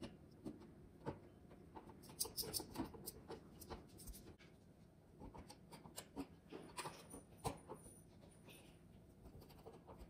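Faint scraping and clicking of a hand screwdriver turning the small screws of a light-switch cover plate, in short runs of turns with pauses between.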